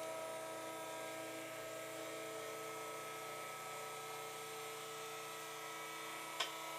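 Electric lift motor of a chiropractic table running with a steady hum as it raises the patient up, with a few sharp clicks near the end.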